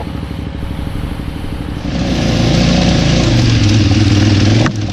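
Adventure motorcycle engine running at low revs on a rough stony trail. About two seconds in it gets louder, with a hiss of wind and track noise over a steady low engine hum.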